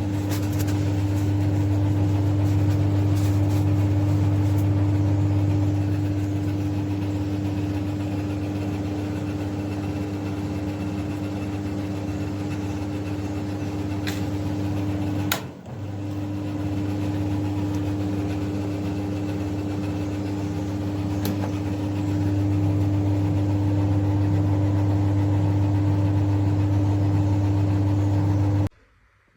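Compact vented tumble dryer running: a steady motor and fan hum with a low drone. It breaks off briefly with a click about halfway through, then runs on until it cuts off suddenly just before the end.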